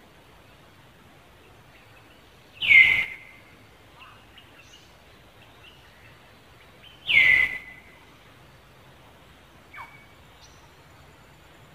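An animal calling: two loud, short high calls about four and a half seconds apart, each dropping in pitch and then holding briefly, and a fainter falling call near the end.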